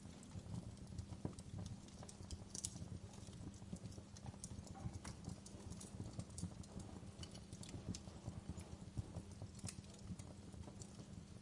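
Fire crackling, with many irregular small pops and snaps over a low, steady rumble.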